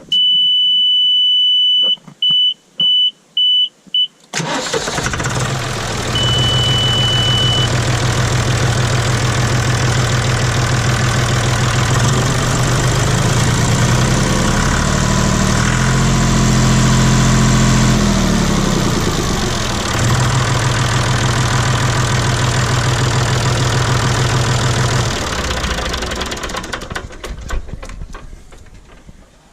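John Deere 5205 tractor's diesel engine, just fitted with a new Stanadyne injection pump. With the key on, an electronic warning beep sounds steadily and then gives four short beeps. The engine starts about four seconds in and idles smoothly, a sign the new pump is working. Its speed rises a little in the middle and drops back, and near the end it is shut off and runs down.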